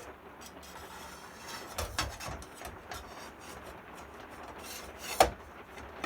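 Scraping and rubbing of a new mitre saw blade and its arbor parts being fitted by hand, with a couple of knocks about two seconds in and a sharp click about five seconds in.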